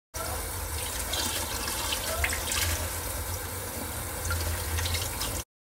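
Water running from a kitchen tap into a stainless steel sink, splashing over squid being rinsed by hand, with a few small clicks. The sound cuts in and cuts off abruptly.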